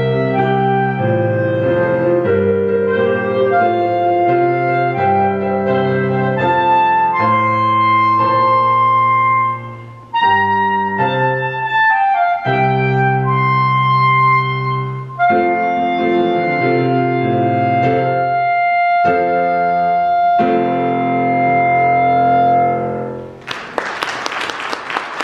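Clarinet playing a melody over keyboard accompaniment, the clarinet ending on a long held note. Applause breaks out just before the end.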